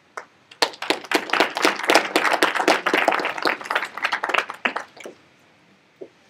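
Audience applauding, a dense patter of hand claps that starts about half a second in and dies away after about four and a half seconds.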